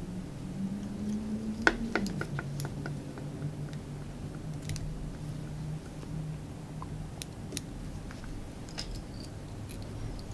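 Fine fly-tying scissors snipping and clicking at the fly in the vise, with a cluster of sharp clicks about two seconds in and a few more later, over a low steady hum.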